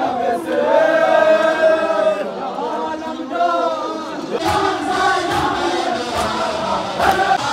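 Many men chanting a Muharram mourning lament together in unison. About halfway through, slow rhythmic thumps of chest-beating (matam) join in, a little over one a second.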